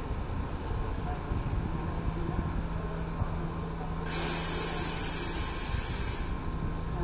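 Czech Railways class 163 Škoda electric locomotive standing with a steady low hum. About four seconds in, a loud hiss of compressed air from the train's air-brake system lasts about two seconds and stops abruptly.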